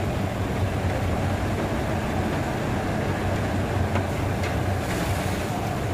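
Tractor diesel engine idling with a steady low hum, over the general machinery noise of the cane unloading yard. A few light clicks come about four to five seconds in.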